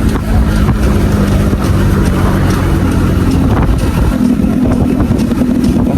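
Benelli motorcycle engine with its stock exhaust running steadily while riding, under a constant rush of road and wind noise. The engine note rises slightly about four seconds in.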